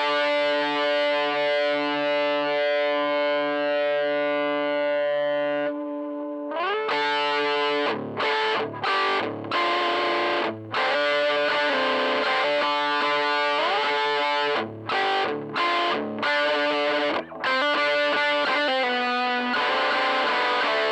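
Michael Kelly Patriot Custom electric guitar through a Joyo Deluxe Crunch distortion pedal into a 5E3 tweed Deluxe-style tube amp. A distorted chord rings for about six seconds, then a slide leads into rhythmic chord playing with brief stops.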